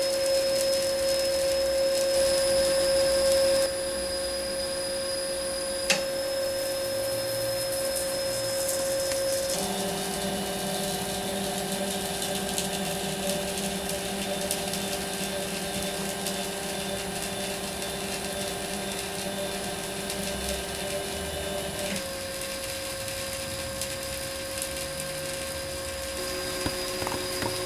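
Stepper motors of a CNC hot-wire foam cutter driving the X and Y axes through a cut, a steady whine of several tones that shifts pitch a few times as the moves change. A single click about six seconds in.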